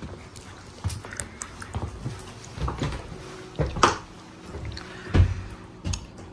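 Irregular knocks and thumps of people walking into a small room, with the two loudest about four and five seconds in.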